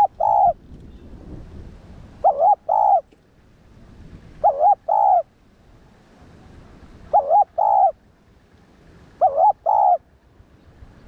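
Spotted dove cooing: a two-part coo phrase repeated five times, about every two and a half seconds, each a short wavering note followed by a longer held note.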